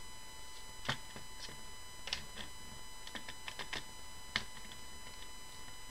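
Irregular small clicks and ticks of a hand screwdriver turning out screws in the plastic housing of a Davis VantageVUE weather station sensor suite, taking out the two screws that hold the wind direction sensor. The sharper clicks come about a second in, about two seconds in and just after four seconds, with a quick run of ticks between.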